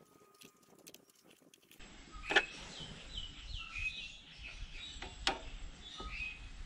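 Light metal clicks and taps of an Allen key and hands on the throttle bodies, the sharpest about two seconds in and again near five seconds. Over an outdoor background, a bird chirps repeatedly from about two seconds in, in short falling notes.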